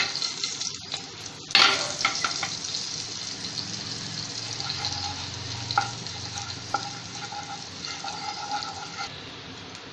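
Cumin and carom seeds sizzling in hot butter and oil in a pan: a steady frying hiss, with a sharp crackle about a second and a half in and a few small pops later as the seeds begin to splutter. A spatula stirs them near the end.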